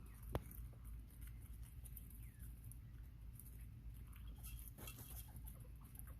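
Bobwhite quail pecking and scratching at fed bugs: faint irregular ticks and patter, with one sharp click about a third of a second in.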